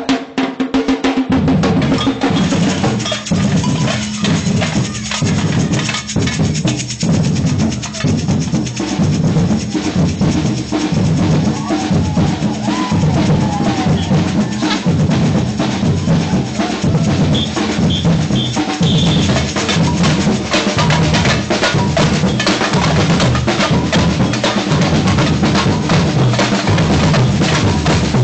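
Samba-reggae drum group playing a steady, driving groove of deep bass drums and snare drums, the bass drums coming in about a second in.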